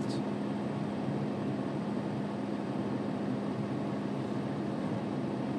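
Steady hum and even rush of air inside a semi-truck cab, with a constant low tone under it.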